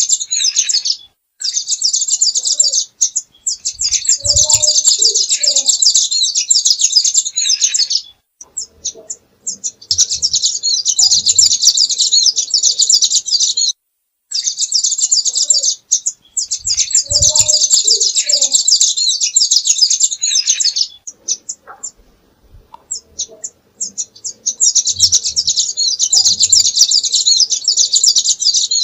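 Songbird singing a long, rapid, high-pitched chattering song in phrases of a few seconds each, broken by short pauses, as in a masteran tutor recording for cage songbirds.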